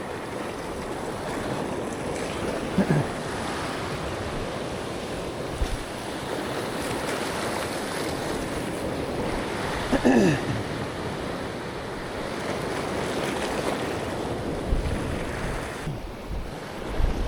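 Sea waves washing against the shore, with wind. Two short sounds that fall in pitch stand out, about three seconds in and again, louder, about ten seconds in.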